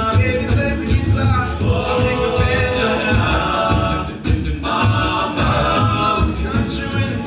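Men's a cappella group singing live: sustained stacked vocal harmonies without clear lyrics over a steady low vocal beat. The sound briefly drops about four seconds in.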